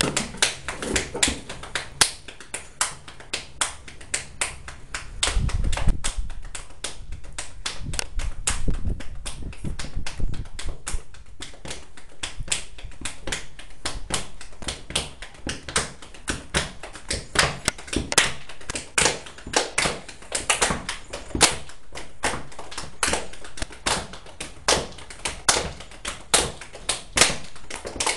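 Body percussion: hands clapping, slapping and tapping in a quick, uneven run of sharp strikes, with deeper thumps mixed in between about five and ten seconds in.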